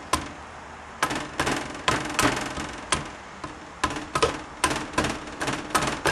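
Repeated sharp knocks, irregular but about two to three a second, as the transmission's second brake piston is tapped down into its bore with a red-handled tool to seat it.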